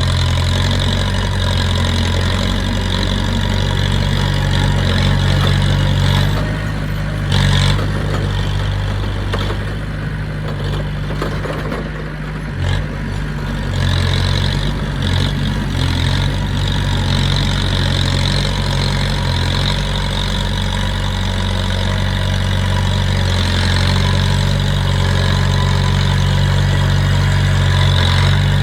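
A heavy earthmoving machine's diesel engine running steadily, easing off for several seconds in the middle and picking up again, with a couple of brief knocks.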